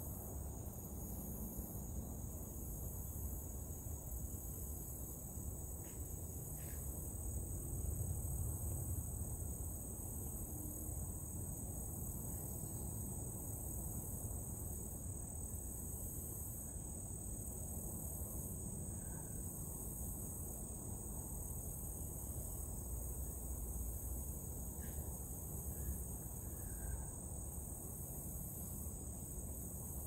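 A forest insect chorus of crickets and katydids trilling steadily, high-pitched, over a low rumble on the microphone.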